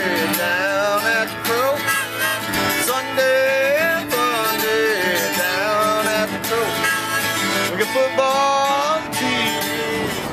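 A country tune played on a strummed acoustic guitar, with a bending melody from a harmonica held in a neck rack.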